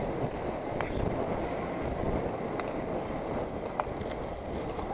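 Wind rushing over the microphone of a camera worn by a speed skater at skating speed, a steady low rumble, with a few faint sharp clicks on top.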